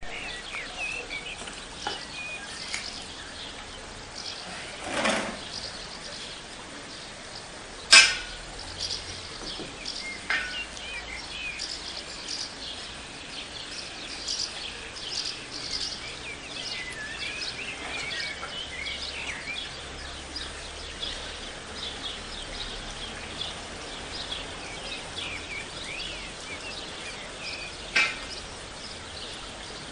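Many small birds chirping and twittering throughout, over a faint outdoor background hiss. A sharp click about eight seconds in is the loudest sound, with a shorter burst just before it and another click near the end.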